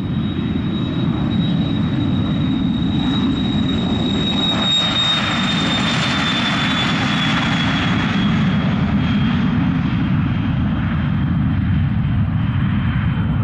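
Cessna Citation Excel/XLS business jet's twin Pratt & Whitney Canada PW545 turbofans at takeoff power during the takeoff roll and lift-off: a steady rumble under a high turbine whine. The whine drops slightly in pitch as the jet passes, about halfway through, where the sound is loudest.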